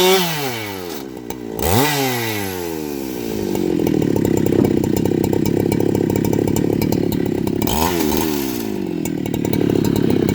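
Husqvarna 395XP two-stroke chainsaw: high revs fall away in the first two seconds and the throttle is blipped once. From about four seconds on it runs under load, cutting through wood, with a brief dip and recovery in revs near eight seconds.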